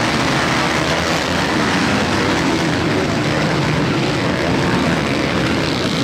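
A pack of motocross bikes racing together, many engines running at high revs and overlapping into one dense, steady drone.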